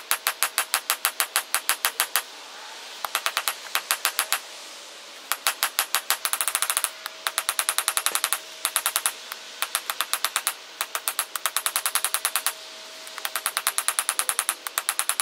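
Hand hammer striking a glowing wrought-iron and 1084 high-carbon steel knife blank on an anvil, forging the blade to shape. The blows come fast and even, about four or five a second, in runs of one to two seconds broken by short pauses, with a steady ring under them.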